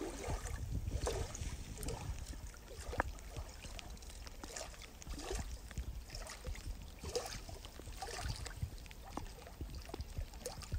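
Small waves lapping and splashing against the shoreline, with wind rumbling on the microphone.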